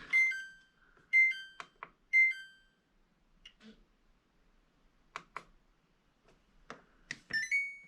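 Washing machine control panel buttons pressed one after another: three short electronic beeps about a second apart, several light clicks of the buttons, then a short stepped chime near the end. Each button is being checked for response while the machine shows a stuck-button error code.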